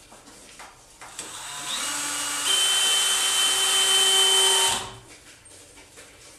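Cordless drill working into a wooden frame: it builds up over about a second, runs with a steady whine for about two seconds, then stops suddenly a little before five seconds in.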